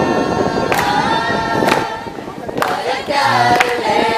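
Glee club choir singing a cappella in several-part harmony, with a sharp percussive hit about once a second.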